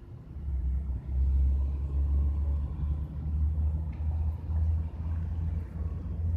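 A low rumble that swells and dips unevenly, starting about half a second in.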